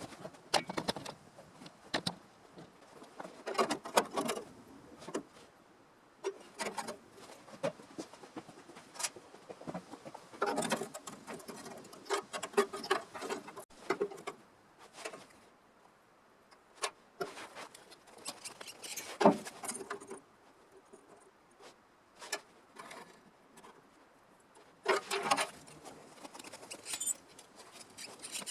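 Irregular small scrapes, clicks and light metallic taps from hand work with tools, coming in short spells with quiet gaps between.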